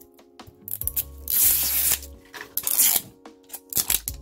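Paper wrapping being torn and peeled off a LOL Surprise #HairGoals doll capsule in several rasping rips, the longest and loudest about a second and a half in, over faint background music.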